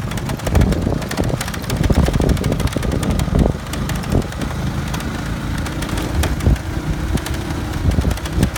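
Motorcycle engine running while riding over a rough dirt track, with wind buffeting the microphone and frequent knocks and rattles from the bumps; the engine note holds steady for the last few seconds.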